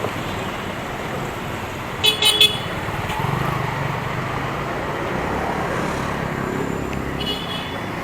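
Busy street traffic with a vehicle horn giving three short toots about two seconds in. An engine rumbles past from about three seconds, and a fainter horn sounds near the end.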